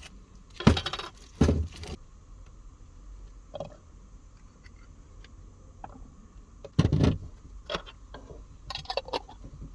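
Kitchen utensils and containers being handled while cooking: clinking, clattering knocks, two loud ones about a second in and another around seven seconds, with lighter clicks and rattles between.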